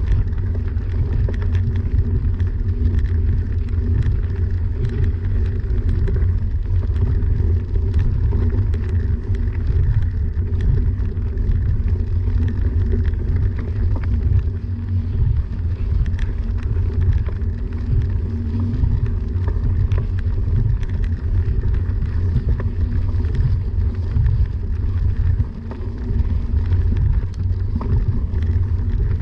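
Bicycle's knobby tyres rolling steadily along a dirt trail, a continuous low rumble with faint scattered ticks of grit and twigs under the tread, heavy with wind buffeting the handlebar camera's microphone.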